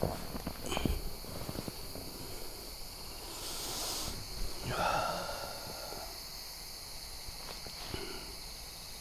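Insects trilling steadily in the background, with scattered small clicks and a brief pitched call about five seconds in.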